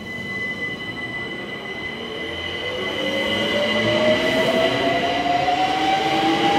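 London Overground Class 378 Electrostar electric train pulling away from the platform, its traction motors giving a whine that rises steadily in pitch as it picks up speed. A steady high tone sits above it, and the sound grows louder as the carriages pass close by.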